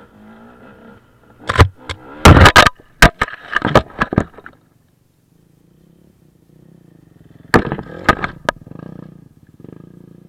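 Loud knocks and clatter in two bursts: a dense run of sharp knocks lasting about three seconds, then a few more knocks about three seconds later, with only a faint low rumble between them.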